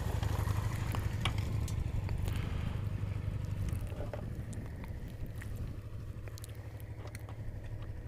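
BMW R1200 GS flat-twin boxer engine idling steadily on a stationary motorcycle, a little quieter after about four seconds, with a few light clicks.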